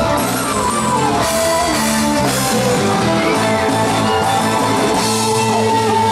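Live gospel band playing: guitar over a drum kit, with cymbals.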